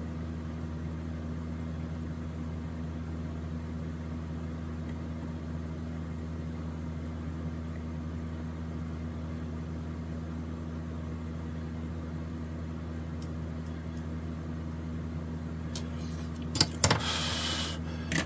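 Steady low hum made of several steady low tones: workbench room tone. About two seconds before the end comes a short burst of hiss and a few clicks.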